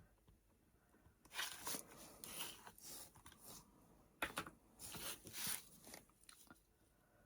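Faint rustling and scraping of paper and stamping supplies being handled, in two stretches of a couple of seconds each, with a sharp click at the start of the second.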